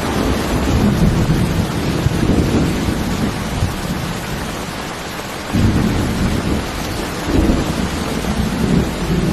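Heavy rain falling steadily with rolling thunder. The rumble eases off about four seconds in, then a fresh peal of thunder comes in suddenly about five and a half seconds in and rolls on.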